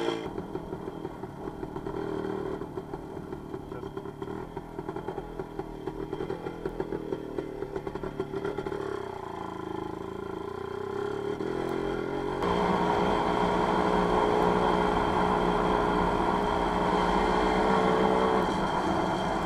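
WSK 125 motorcycle's single-cylinder two-stroke engine running while riding, choppy and quieter at first. About two-thirds of the way through it gets louder and runs steadily.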